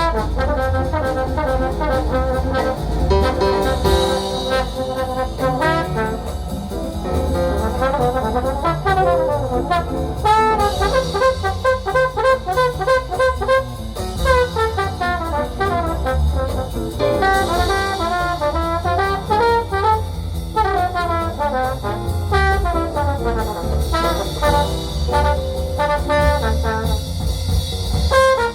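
Jazz with brass, trombone and trumpets, playing from a CD over a hi-fi stereo system, with a strong bass line underneath.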